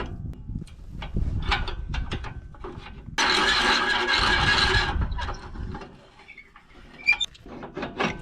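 Metal clicks and knocks of a tractor's hitch and fittings being worked by hand, with a loud hiss carrying a squeal for under two seconds about three seconds in, and a sharp metallic clink near the end.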